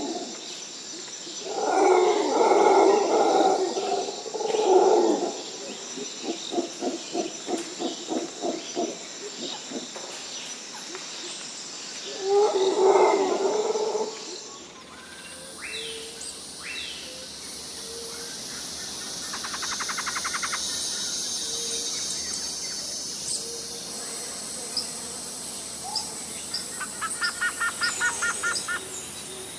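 Forest wildlife sounds. First comes an animal's loud, hoarse calls, then a run of short repeated calls at about four a second, then another loud call. After an abrupt change in the background, bird chirps and rapid trills sound over a steady high hiss of insects.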